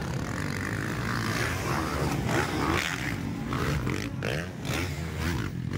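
Several motocross dirt bike engines racing, revving up and down over one another.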